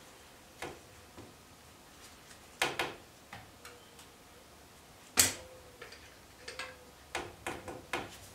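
Irregular metallic clicks and clinks of a wrench turning and seating the oil level plug in a gear case, with a louder knock about five seconds in and a quick run of clicks near the end.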